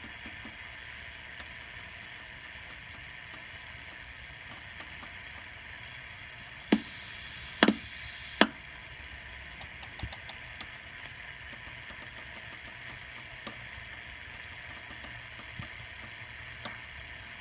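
Steady static hiss from a 1973 Cobra 142GTL CB radio's receiver as its rotary channel selector is turned, with faint clicks scattered through and four loud, sharp pops near the middle.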